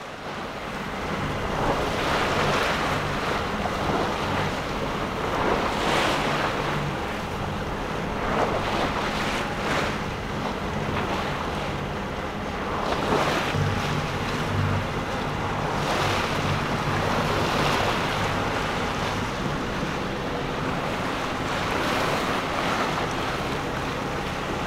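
Water rushing and splashing along the hull of a sailboat under way, in surges every few seconds, with wind buffeting the microphone and a low hum underneath.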